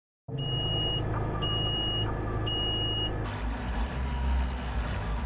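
Hook-lift truck's diesel engine running, with repeated electronic warning beeps: three slower beeps about a second apart, then faster, higher-pitched beeps about two a second as the engine gets louder.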